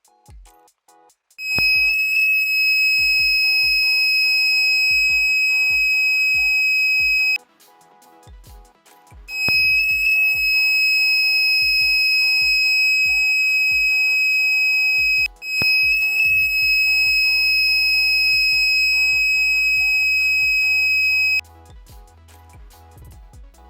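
12-volt buzzer of a homemade smoke detector circuit sounding a steady high-pitched alarm tone in three long blasts of about six seconds each, the last two split by only a brief break: the circuit's warning that it is sensing smoke. Background music with a steady beat plays underneath.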